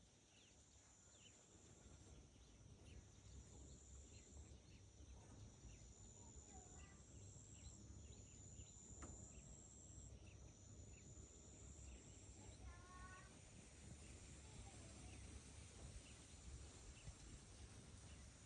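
Faint countryside ambience. A high, steady insect trill comes in stretches of a second or two, with scattered short bird chirps and a brief bird call about 13 seconds in, over a low rumble.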